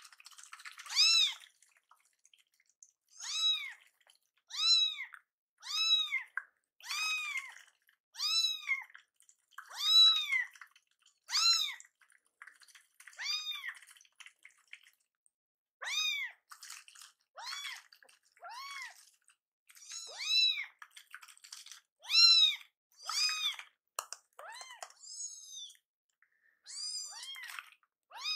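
Two young weaning-age kittens meowing repeatedly, short high-pitched calls about one a second that rise and fall in pitch. They are hungry, demanding to be fed.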